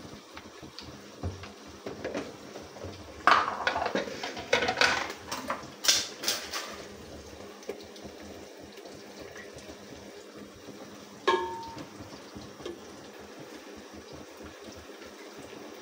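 Kitchen cookware and utensils clattering, a quick run of sharp knocks from about three to seven seconds in, then one metal clink with a short ring near eleven seconds.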